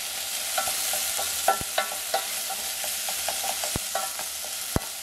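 Chopped red onions frying in oil in a stainless steel saucepan, really sizzling, while being stirred, with short clinks and a few sharp clicks against the pan over a steady sizzle. The onions are being fried until they turn brown, meant to caramelize on a low heat.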